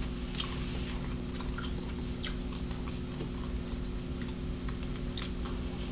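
Close-miked chewing of fried chicken: scattered small, short mouth clicks and smacks over a steady low hum.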